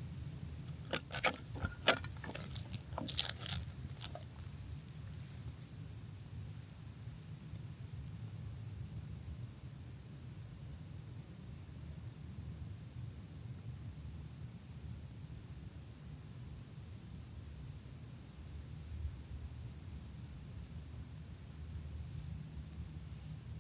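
Insects chirping steadily in a fast, even pulse, with a thin high steady trill above, over a low rumble. A few sharp clicks in the first few seconds.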